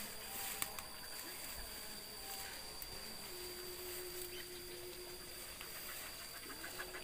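Hunting dogs sniffing and rustling through undergrowth at a rat hole, over a steady high-pitched insect drone.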